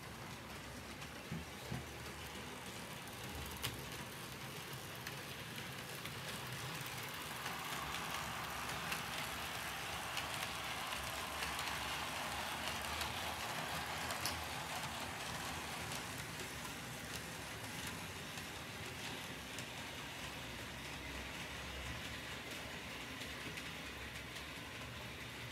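Märklin model train running past on the track: a steady rolling rumble and rattle of wheels on rail that swells to its loudest about halfway through, then fades as the train moves away.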